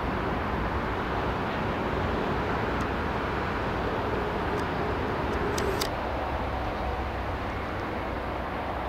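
DB class 218 diesel-hydraulic locomotive running as it rolls slowly toward the listener with a Kirow rail crane in tow, a steady engine rumble under general yard noise. A few brief high squeaks come about five and a half seconds in.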